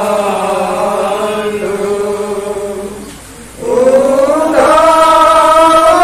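Men's voices chanting an Assamese nam-prasanga devotional chant, holding long sung notes. The phrase fades out about three seconds in, and after a short breath a new, louder phrase comes in with an upward slide in pitch.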